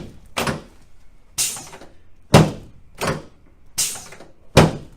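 A quick series of chiropractic adjustment thrusts on a patient on the treatment table: six sharp thumps, a little under a second apart, each a low thud with a crisp crack on top.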